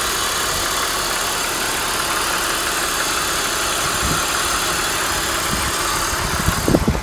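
2005 BMW 325ci's 2.5-litre DOHC inline-six engine idling steadily, heard from over the open engine bay. A few light knocks come near the end.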